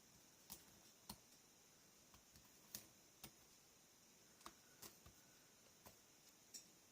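Faint, irregular small clicks and taps, about ten over several seconds, from fingernails picking at the backing of double-sided tape on chipboard pieces, over near silence.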